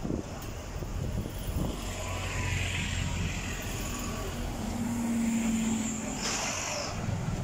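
City street traffic, with double-decker bus engines running as the buses pass close by. A short hiss comes about six seconds in.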